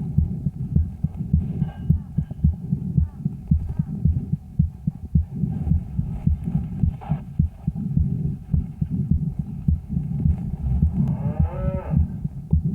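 Calf chest sounds heard through a stethoscope microphone on the left chest wall: repeated dull heartbeat thumps over a rumble of breath sounds. Near the end the calf gives a short moo, carried through its body, that rises and falls in pitch.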